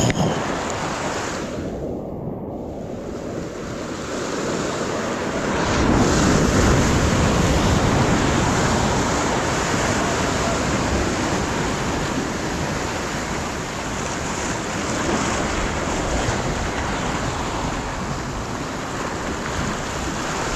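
Ocean surf breaking and washing over jetty rocks, with wind buffeting the microphone. A wave surges in louder about six seconds in, and the wash carries on after it.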